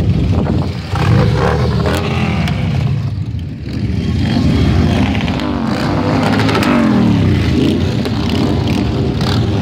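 A procession of large touring motorcycles riding past one after another. Their engines run loudly and steadily, with notes rising and falling as the bikes rev and go by.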